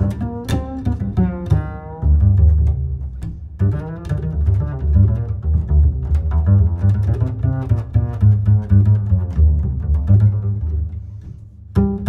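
Background music: string instruments playing over a deep, steady bass line, with a brief dip in level shortly before the end.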